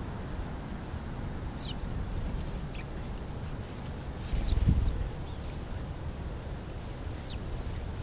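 A few short, high chirps from sparrows, spaced a second or more apart, over a steady low outdoor rumble. A brief louder low bump about halfway.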